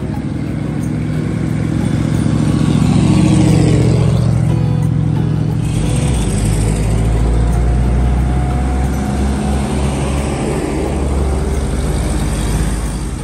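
Old military jeeps and a truck driving past one after another, engines running. The sound swells to its loudest about three to four seconds in, and a deep low rumble follows in the middle of the stretch.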